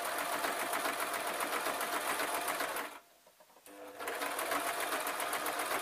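Singer electric sewing machine stitching a seam through fleece at a steady speed with a fast needle ticking, stopping briefly about three seconds in, then starting up again.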